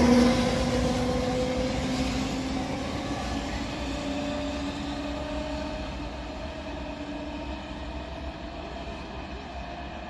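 An E464 electric locomotive at the tail of a passenger train passes and pulls away. The running noise fades steadily, with a steady whine over it.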